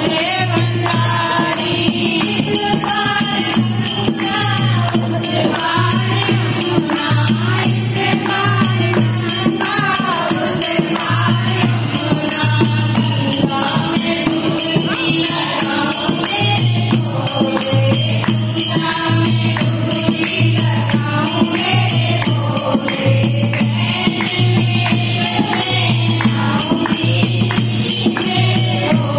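A group of women singing a Hindi devotional bhajan to Shiva, a girl's voice at the microphone with the others joining in, over steady rhythmic hand clapping. A steady low tone runs beneath the singing.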